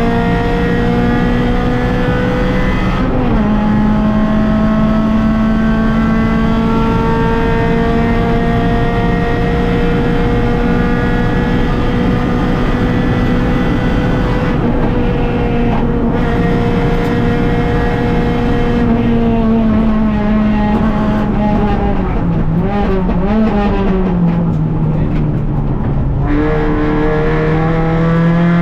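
Rally car engine heard from inside the car, pulling at high revs. Revs step down with a gear change about three seconds in, then hold steady for a long stretch. Past the middle they fall with a few quick wavers as the car slows for a corner, then climb again near the end as it accelerates.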